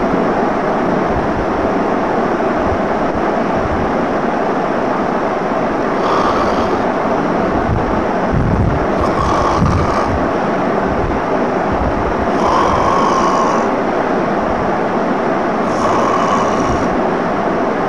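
Acted snoring: about five snores roughly three seconds apart, over a loud, steady background rumble and hiss.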